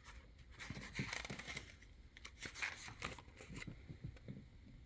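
Soft, faint rustling and small clicks of paper being handled: the pages of a picture book being turned.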